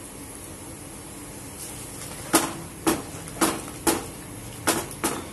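Wooden spatula stirring agar-agar into simmering coconut milk in a non-stick pan. From a little past two seconds in, it knocks against the pan six times, about two a second. Under it runs the faint steady hiss of the simmering pan.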